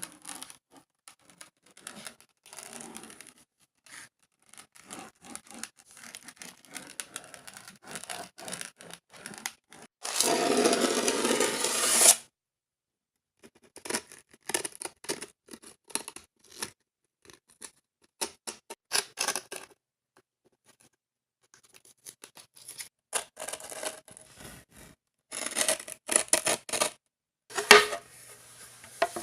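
Clear grip tape being worked onto a skateboard deck: scattered scratching and scraping strokes, with a louder continuous scrape lasting about two seconds around ten seconds in.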